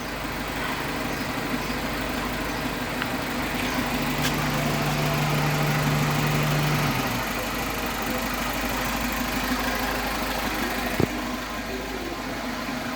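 An engine running steadily at idle, with a low hum that grows stronger from about four to seven seconds in, and a single sharp click near the end.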